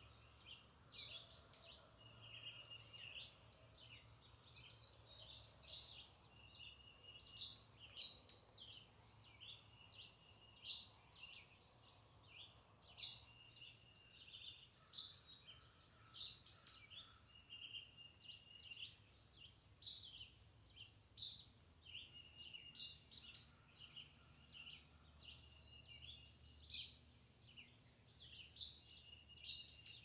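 Several wild birds singing and calling in a morning chorus: sharp chirps and brief whistled notes, repeated every second or so.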